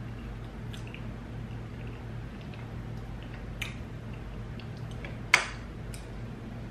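Tableware handled at a table: a few light clicks of a metal fork and one sharp clack about five seconds in, over a steady low hum.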